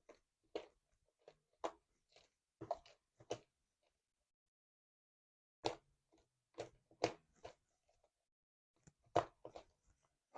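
Sticky slime being squished and pulled by hand, giving irregular wet clicks and pops, with a pause of about two seconds midway.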